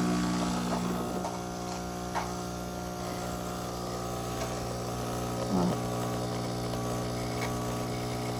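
Fully automatic espresso machine's pump running with a steady, even hum as it dispenses the freshly brewed espresso shot.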